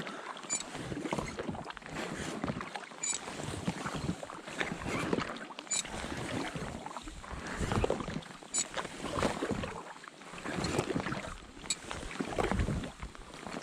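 Double-bladed carbon-fibre paddle stroking and splashing through lake water from a packraft, about one stroke a second. A faint sharp tick comes every few seconds.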